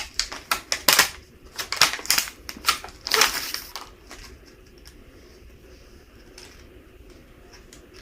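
Small hard plastic pieces of a toy pool table set and their packaging being handled: a quick, irregular run of clicks and taps with a short plastic crinkle, dying away about halfway through.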